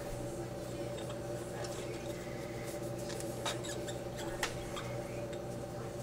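La Pavoni Cellini espresso machine humming steadily, with scattered faint ticks and clicks.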